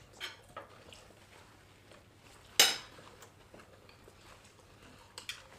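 Metal cutlery clinking and scraping against ceramic plates in a few scattered strokes, one much louder than the rest about two and a half seconds in.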